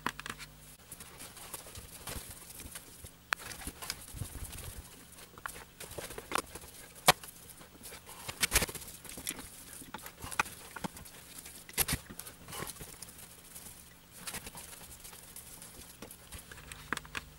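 Torx screwdriver working the screws out of a Kalkhoff Impulse 2 ebike motor housing: irregular small clicks and taps of tool, screws and housing, with a handful of sharper knocks.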